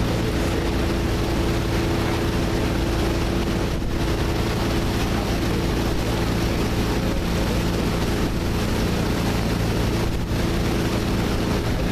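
Passenger speedboat's engine running steadily at cruising speed, with the rush of water and wind over the hull.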